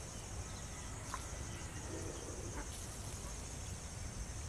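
Steady high-pitched drone of insects in rural outdoor ambience, with a few faint short chirps and a low background rumble.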